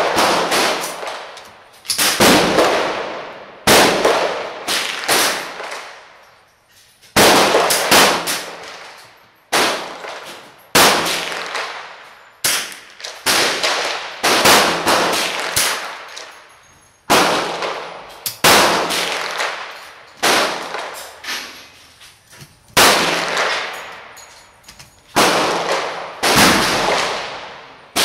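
Ruger 10/22 .22 rimfire semi-automatic rifle fired as a slow string of single shots, roughly one every second or so. Each crack rings on with a long echo in the enclosed indoor range.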